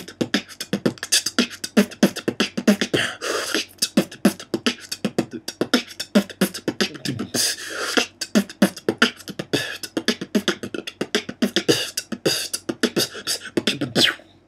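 Vocal beatbox freestyle made only from the three basic sounds, bass kick, hi-hat and rim shot, with no vocal bass or effects, as a quick run of mouth-made drum strokes. It stops right at the end.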